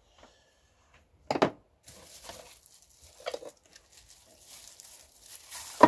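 Plastic wrapping crinkling and rustling as a nested camping cook set is unwrapped, with sharp knocks of the metal pots and cup being handled, one about a second and a half in and a louder one near the end.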